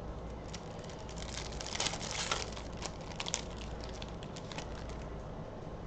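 Trading cards and their pack being handled: crinkling with a run of light clicks and rustles in the middle.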